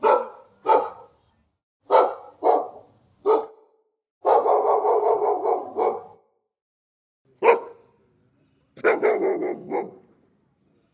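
Dog barking: a handful of single barks spaced about half a second to a second apart, then a quick run of barks, one lone bark, and a second quick run near the end.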